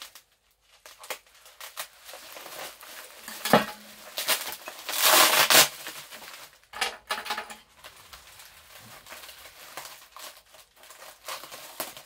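Bubble wrap and plastic film crinkling and tearing as they are cut and pulled open by hand, in a run of uneven rustles and crackles with the loudest stretch about five seconds in.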